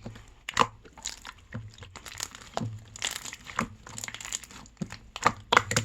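Homemade slime being squeezed and poked by hand, giving irregular wet clicks and crackles.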